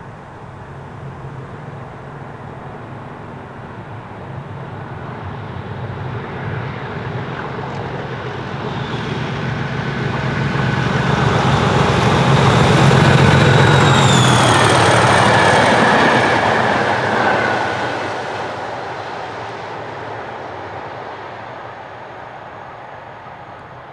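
Class 37 diesel locomotive with its English Electric V12 engine under power, running louder as it approaches, passing about 13 s in and then fading as the train moves away. Its high turbocharger whistle drops in pitch as it goes by, over the rumble of wheels on the rails.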